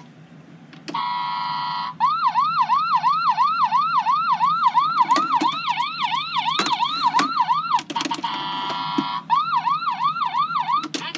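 A battery-powered toy ambulance's electronic siren. It sounds a steady tone for about a second, then a fast repeating wail of about three sweeps a second. The steady tone and the sweeps then alternate again, with a few sharp clicks between them.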